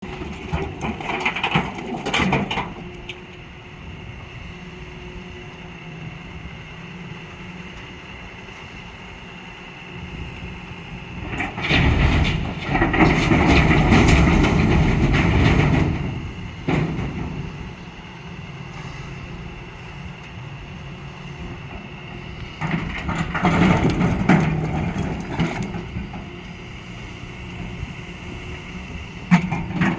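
Hyundai excavator's diesel engine running steadily under load, swelling three times into louder, rumbling stretches as it digs and loads rocks, the longest about four seconds near the middle, with a sharp knock or two.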